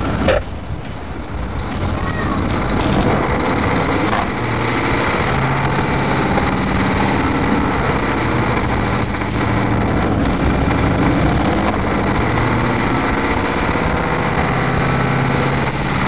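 1987 Blue Bird school bus with an International 9.0L diesel engine and Allison AT-545 automatic transmission, heard from inside the bus while it is under way. The engine's drone swells and eases, and there is a brief sharp burst of noise right at the start.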